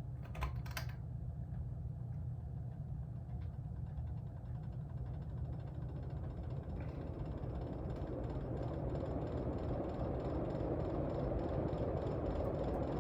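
Mid-1980s ceiling fan, believed to be a Litex CloseUp, switched on from off with a few clicks about half a second in; its motor hums and the rush of air grows steadily louder as it spins up to high speed.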